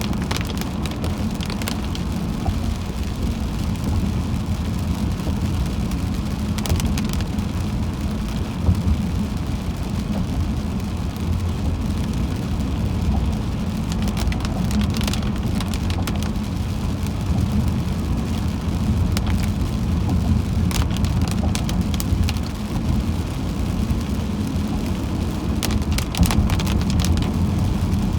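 Steady low road rumble of a car driving in rain, with rain hitting the car and scattered sharper ticks of drops.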